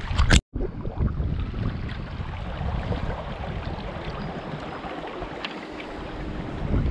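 Wind buffeting the microphone over the steady rush of river water. About a third of a second in there is a loud sharp knock, followed by a brief gap of dead silence.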